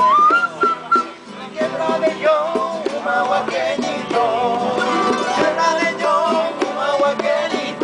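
Live acoustic folk music on plucked strings, a harp and guitars among them, with a melody line wavering in pitch over a steady plucked rhythm.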